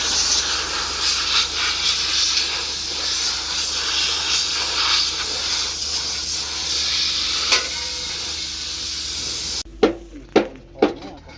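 A loud, steady hiss, like spray or escaping air, that cuts off abruptly near the end, followed by sharp taps about two a second.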